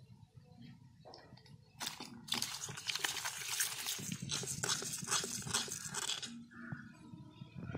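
Live climbing perch thrashing in a wet steel bowl, a crackling run of wet slaps and splashes against the metal from about two seconds in until just past six seconds.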